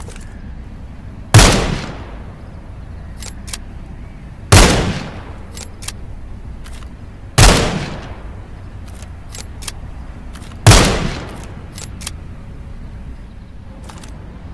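.22 rifle fired four times, roughly three seconds apart, each sharp shot trailing off in a short echo. Fainter clicks sound in the gaps between shots.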